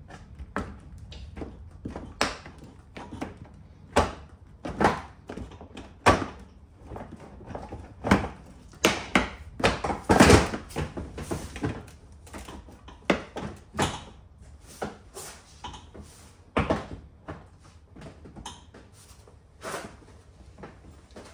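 BMW i3s front bumper trim and splitter, plastic, knocking and clicking as it is pressed and snapped into place by hand: irregular sharp knocks, several a second at times, the loudest cluster about ten seconds in.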